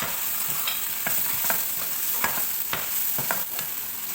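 Sliced shallots and garlic stir-frying with pounded sambal belacan in hot oil: a steady sizzle, with repeated scrapes and taps of a spatula against the pan.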